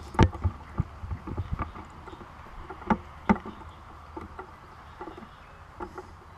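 Steady low drone of a distant boat motor running out on the lake, with a few scattered sharp knocks, the loudest two close together about three seconds in.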